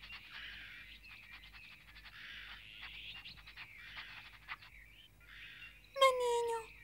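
Cartoon sound effects of bear cubs rustling through the undergrowth and snuffling along the ground: soft, uneven rustling broken by quick ticks. Near the end one cub gives a short, slightly falling cry.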